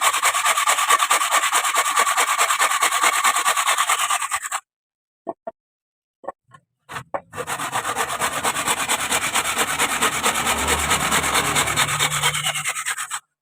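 Wood being worked on a homemade wood lathe: a rasping scrape against the turning wooden plate blank that pulses rapidly several times a second. It breaks off suddenly for a couple of seconds, leaving only a few clicks, then resumes.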